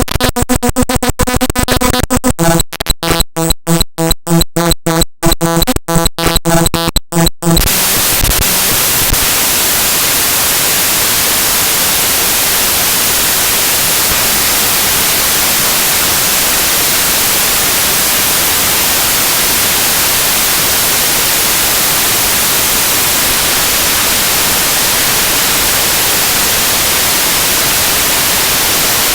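The binary data of the mspaint.exe program file played directly as raw audio: a rapid, stuttering buzz of repeating tones for about the first seven seconds, then a steady, loud hiss like static for the rest.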